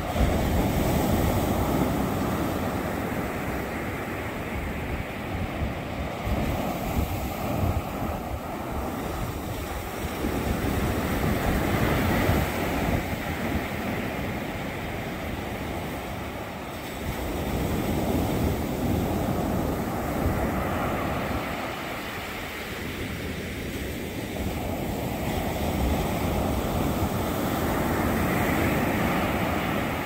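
Low ocean waves breaking and washing up a sandy beach, a steady surf hiss that swells and eases every several seconds as each wave comes in.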